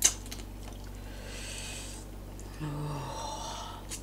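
Close-up eating sounds: a sharp click at the start, then a breath drawn through the nose about a second in and a short closed-mouth 'mm' hum while chewing about two and a half seconds in, from someone eating very spicy food.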